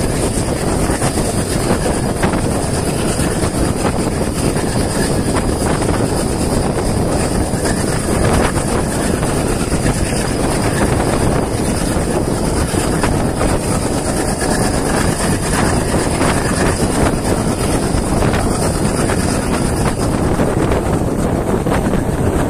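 Steady, loud running noise of a passenger train heard from on board, a continuous rumble with wind buffeting the microphone.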